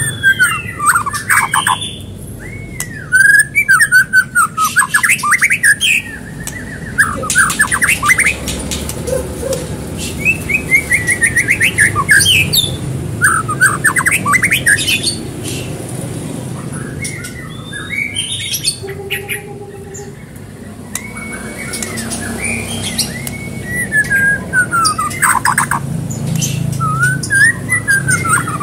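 White-rumped shama (murai batu) singing loudly in a long, varied song: whistled phrases that swoop up and down, fast trills and rapid clicking notes, delivered in bouts with short pauses.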